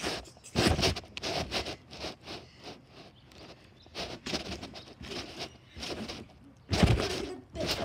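Trampoline mat thumping and rustling under someone bouncing, picked up close from the mat. There is a heavy landing about a second in and another near the end, with lighter scrapes and taps between.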